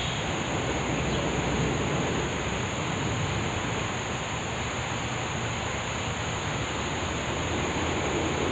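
Steady outdoor background: an even rushing noise with a constant high insect drone.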